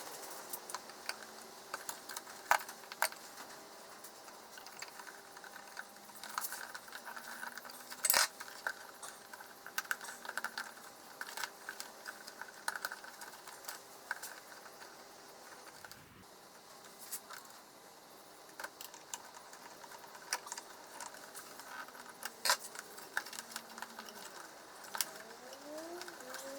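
Scattered small clicks, taps and light metallic rattles from hand tools and wires as DC power leads are fastened into screw terminals. A few clicks stand out louder.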